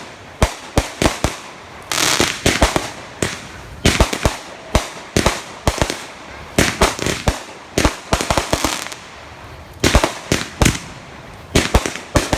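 Consumer fireworks going off: a rapid, irregular string of sharp bangs and pops in clusters, with stretches of crackling between them.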